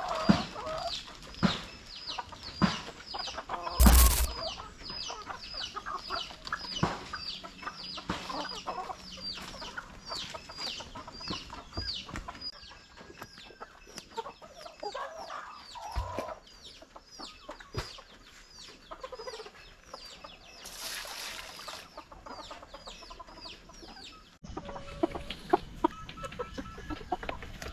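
Backyard chickens clucking, over a high, rapid chirp repeated about two to three times a second. A loud knock comes about four seconds in and a brief hiss later on.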